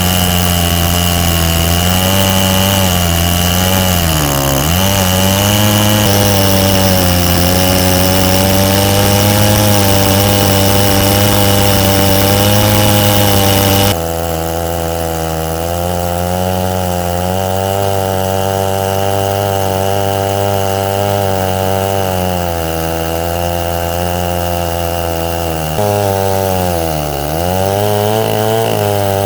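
Chinese-clone Stihl 070 two-stroke chainsaw running at high speed in an Alaskan chainsaw mill, cutting through mesquite hardwood. Its speed dips briefly under load twice and recovers. The saw is set to run really rich for break-in.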